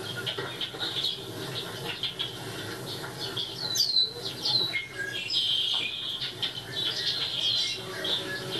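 Small songbirds chirping and twittering in quick, high, falling notes, in clusters with the busiest burst about four seconds in, played through a television's speakers from a bird-feeder video.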